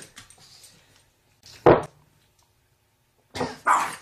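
A dog barking in alarm at its owner's fart: one loud short bark about one and a half seconds in, then two more close together near the end.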